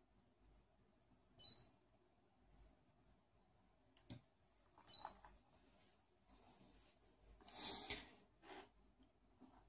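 Piezo buzzer on an Arduino prototype giving two short high beeps about three and a half seconds apart, with a faint click between them. Near the end there is a brief rustle as a hand comes off a plastic box.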